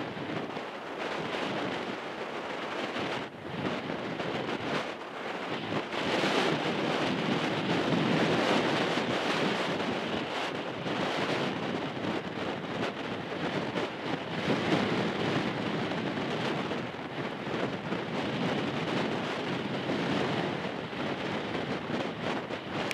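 Case IH 500 Quadtrac tractor running under load as a steady rumble while it pulls an anhydrous ammonia applicator, mixed with wind buffeting the microphone. It gets louder about six seconds in.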